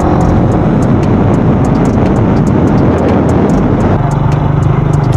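Motorcycle riding at speed: loud, rushing wind noise on the microphone mixed with engine noise. About four seconds in, a steady low engine note comes through.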